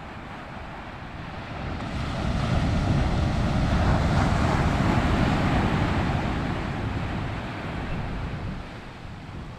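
Surf: a wave breaking and washing up the beach, a hiss that swells about two seconds in, holds for a few seconds, then slowly fades.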